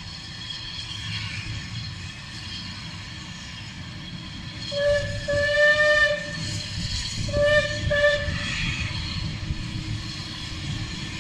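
Steam locomotive whistle sounding two blasts, a longer one and then a shorter one, over the low rumble of the locomotive approaching.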